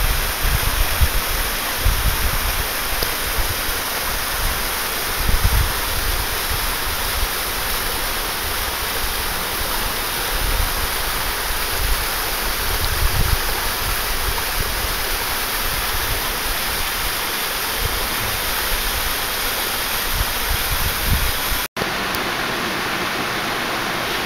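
Steady rush of water tumbling down a rocky cascade and spilling over a stone weir. Low gusts of wind buffet the microphone in the first half, and the sound cuts out for an instant near the end.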